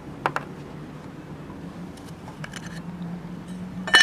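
Small clicks of screws and the breaker-point cover being taken off an old Briggs & Stratton engine by hand, with one sharp, ringing clink near the end. A steady low hum runs underneath.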